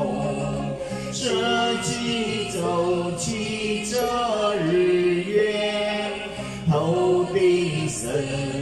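A man singing a Chinese Buddhist devotional verse into a handheld microphone, drawing out long notes that slide between pitches, with short breaths between phrases.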